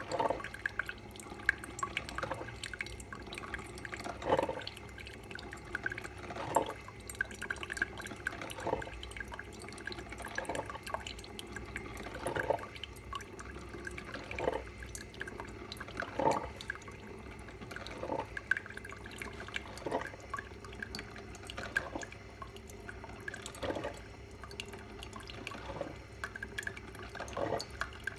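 Salter one-cup filter coffee maker brewing: coffee dripping into the mug, a drip about every two seconds.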